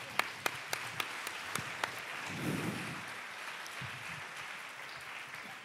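Audience applauding: a few distinct sharp claps at first, filling out into steady applause that slowly dies away near the end.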